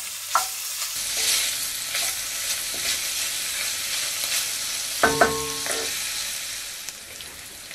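Diced sausage sizzling in olive oil in a frying pan while a wooden spoon stirs and scrapes through it. There is a short ringing knock about five seconds in, and the sizzling quietens near the end.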